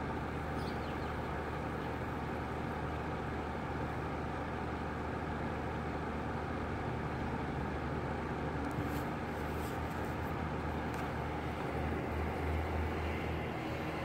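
Steady low rumble of outdoor traffic noise coming in through an open window, with a few faint ticks near the middle.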